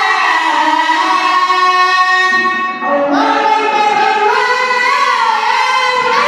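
A child's voice chanting the adhan, the Islamic call to prayer: two long held phrases with a winding, ornamented pitch, broken by a short breath about three seconds in.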